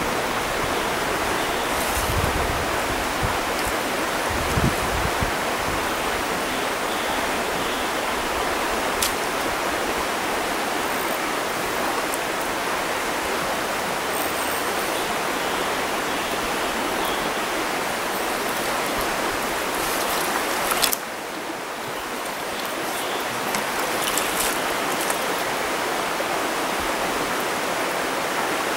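Steady rushing of flowing stream water, with a sharp click about three-quarters of the way through, after which the water sound dips a little and then comes back up.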